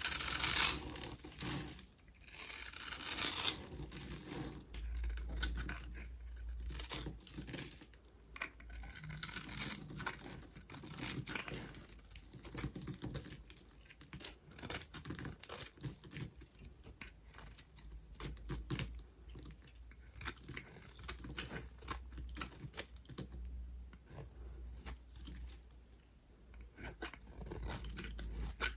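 A knife cutting into a block of dry soap, crunching and crackling as the cubes break loose. Two longer, louder scraping cuts in the first few seconds, then a run of short crisp cracks and snaps.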